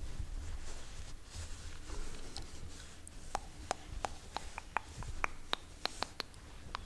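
Long fingernail tapping on the printed logo of a sports bra: a run of light, sharp clicks, about three a second, that begins about three seconds in.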